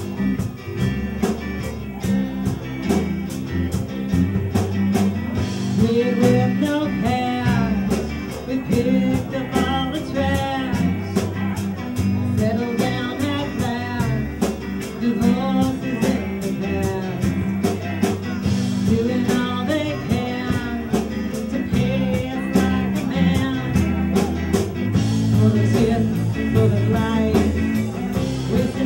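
Live rock band playing: a woman singing lead over electric bass, electric guitar and acoustic guitar, with a steady beat.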